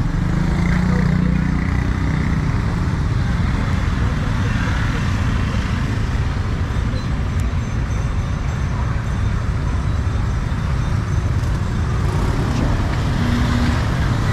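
Steady street traffic noise, mostly motorbikes, with indistinct voices in the background.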